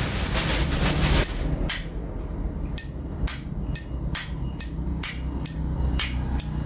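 Zippo Slim lighter's lid flicked open and snapped shut again and again, a run of sharp metallic clacks with a brief high ring, about two to three a second. This is the crisp lid sound ('âm') that collectors look for in a Zippo.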